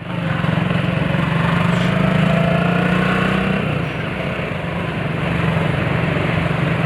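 Motorcycle engine opening up suddenly and running loud and steady under throttle, then easing off slightly about four seconds in.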